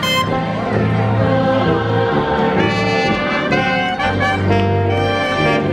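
Brass band music from a marching parade band, with trumpets carrying the tune over a low sousaphone bass line.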